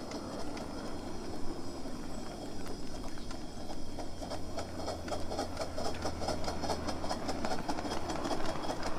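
Miniature live steam locomotive running along its track, a steady mechanical rumble with a rapid, even clicking that sets in about four seconds in.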